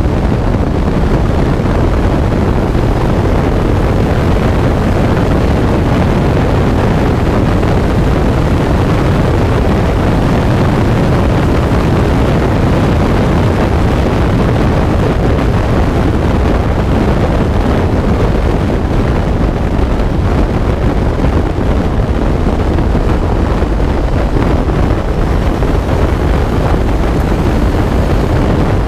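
Onboard sound of an open-cockpit track car at speed: a loud, steady rush of wind buffeting the microphone, with the car's Honda CBR1000RR inline-four engine running underneath.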